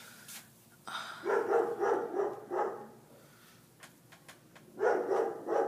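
A dog barking in a quick run of barks, then again in a second bout near the end.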